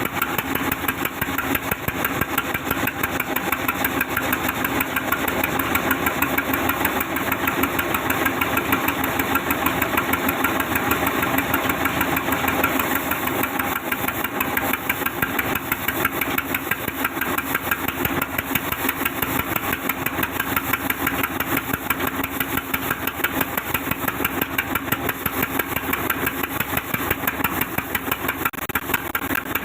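Sawmill machinery running steadily, a loud engine-like drone with a fast, even beat.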